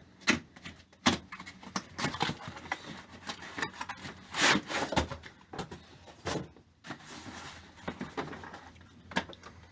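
A box or case being unpacked by hand: a string of clicks and knocks with rubbing and scraping, and a longer rustling scrape about halfway through.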